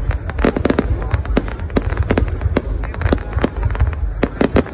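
Aerial fireworks display bursting in a rapid, irregular string of sharp bangs, several a second, over a steady low rumble.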